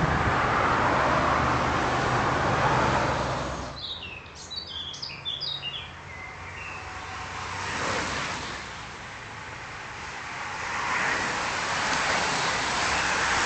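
Steady road-traffic noise with a low engine hum, cut off abruptly a little over a third of the way in. Then birds chirping in quieter surroundings, and near the end a rising hiss as a bunch of racing bicycles approaches and passes close by.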